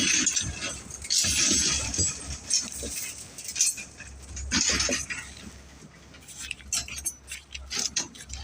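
Steel reinforcing bars clinking and rattling against each other as ironworkers handle and tie rebar for a concrete deck, in irregular clusters of light metallic clicks over a low rumble.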